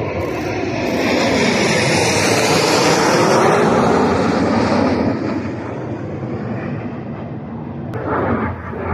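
Black Eagles KAI T-50B jets passing overhead in formation: a loud jet engine roar with a sweeping tone. It is loudest a few seconds in, fades away, then starts to build again near the end.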